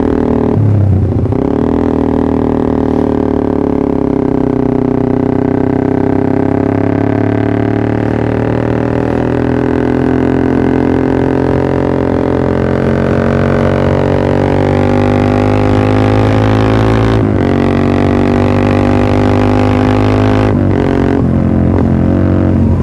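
Exhaust note of a Yamaha R15 V3's single-cylinder engine through a Pro Liner aftermarket exhaust, droning steadily while the pitch drifts slowly up and down. There is a dip about a second in and two brief breaks in the note near the end.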